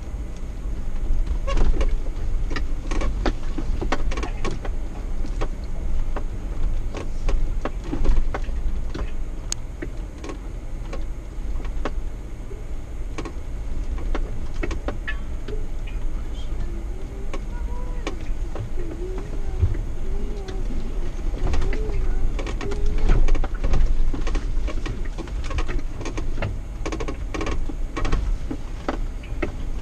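Jeep Wrangler crawling along a bumpy dirt trail: a steady low engine and drivetrain rumble under frequent sharp clicks and knocks from the body and gear rattling over the ruts. A wavering higher tone rises and falls for several seconds past the middle.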